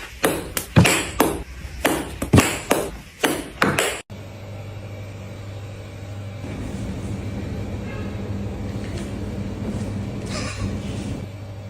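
A quick run of about ten sharp knocks or taps over four seconds, then an abrupt cut to a steady low hum.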